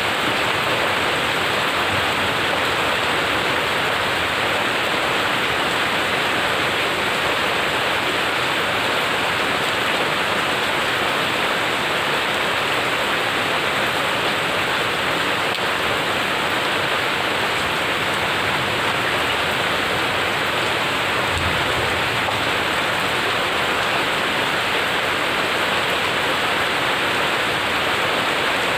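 Heavy rain falling steadily on a water-covered concrete driveway and garden plants, an even, unbroken hiss of splashing drops.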